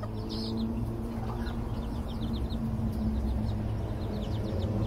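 Serama chicks peeping: runs of short, high, falling peeps, several a second. A low steady hum runs underneath.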